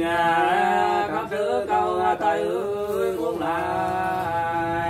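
Unaccompanied singing of hát sli, the Nùng folk song of Lạng Sơn, in long held notes that slide between pitches.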